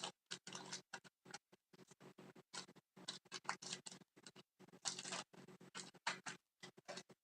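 Trading cards being handled: a run of short, faint rustles and scrapes of card stock sliding, starting and stopping irregularly.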